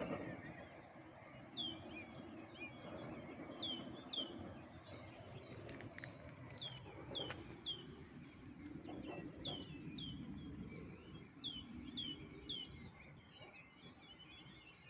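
Songbird calling: runs of short, high chirps, each sliding down in pitch, repeated every couple of seconds over a steady low rumble.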